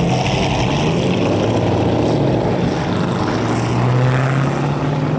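Car engine running with a deep, steady exhaust note whose pitch drifts gently up and down, a little louder about four seconds in.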